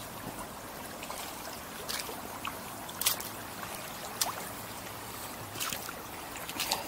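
Wellington boots wading through shallow river water over pebbles: about five steps, each a short splash and crunch a little over a second apart, over the steady sound of flowing river water.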